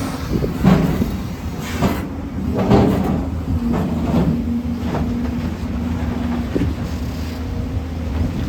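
JCB 245 HD LR long-reach excavator running steadily under load, with a hydraulic whine and several clanks and scrapes as the bucket works rock.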